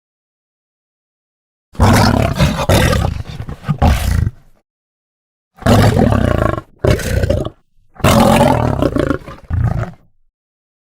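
Lion roaring in a series of separate bouts, each from under a second to about three seconds long, with dead silence between them.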